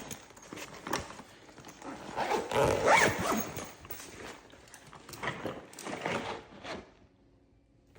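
Hand tools shifting and clinking inside a nylon tool pouch as it is handled, with fabric rustling: a run of irregular clacks and rustles, busiest about three seconds in and dying away near the end.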